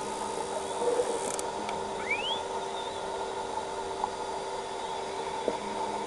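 Underwater recording of steady hiss and hum, with a faint false killer whale whistle rising in pitch about two seconds in and a few faint clicks.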